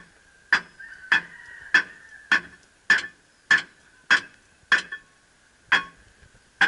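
Steady hammer blows on steel under a truck, a little under two a second, each a sharp metallic strike with a brief ringing note.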